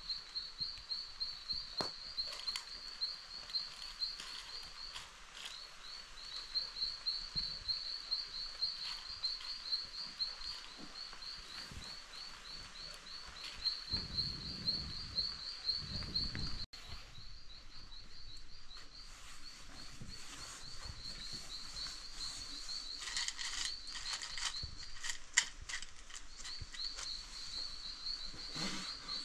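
Steady high-pitched chirping, pulsing several times a second, from wildlife in the background, with a brief low rumble about halfway through and a few light clicks near the end.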